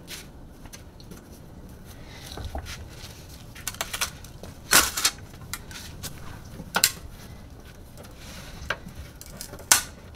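Scattered clicks and knocks of hands working inside an electric mini bike's battery compartment, handling wiring and a plastic connector against the plastic housing and metal frame. The sharpest knocks come about five seconds in and near the end.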